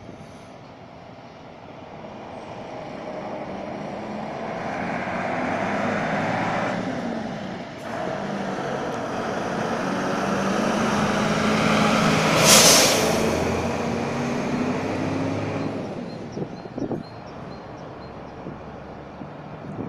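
Mercedes-Benz fire engine's diesel engine running as the truck pulls out and drives past, swelling and then fading. About twelve seconds in there is a short, loud hiss of air brakes.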